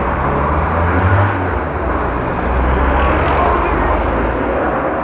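Steady rushing wind and road noise with a heavy low rumble, as heard from a camera on a moving bicycle in traffic. A low hum like a motor vehicle's engine sits under it for the first second or so.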